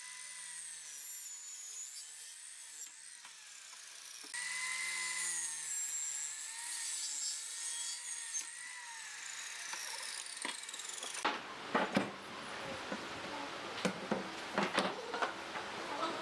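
Sliding compound miter saw running and cutting through a plywood sheet, its motor giving a steady whine that gets louder about four seconds in, then falls in pitch as the blade winds down. About eleven seconds in, it gives way to sharp knocks and clatter of plywood boards being handled and set down on a wooden workbench.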